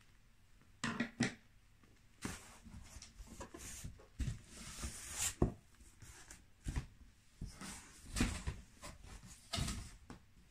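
A large cardboard shipping box being opened by hand: flaps flexing, scraping and knocking in a string of short thumps, with a longer scraping rustle about four to five seconds in.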